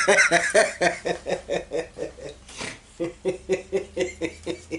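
A man laughing in a run of quick short chuckles, about five a second, pausing briefly a little past two seconds in before a second run of chuckles.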